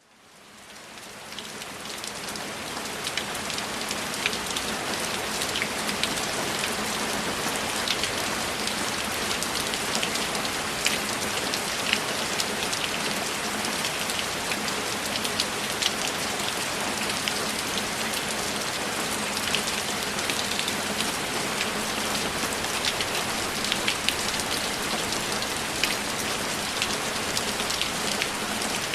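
Steady rain falling, with many separate close drops ticking through the hiss. It fades in over the first couple of seconds.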